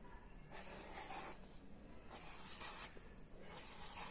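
Felt-tip marker drawing on squared notebook paper: three separate strokes of about a second each, the tip rubbing and hissing on the paper as a circle is drawn each time, with short pauses between.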